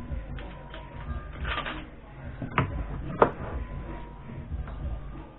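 Workshop handling noises as a wooden dowel is set up and secured for cutting: a brief clatter, then two sharp knocks, the second the loudest, over a low rumble.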